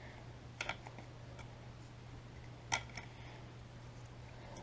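A few light clicks and taps from a small air conditioner logo emblem being handled, with a sharper click near the middle, over a low steady hum.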